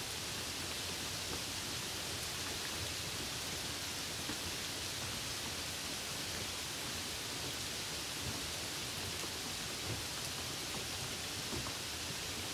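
Steady rain: an even hiss with faint scattered drop ticks.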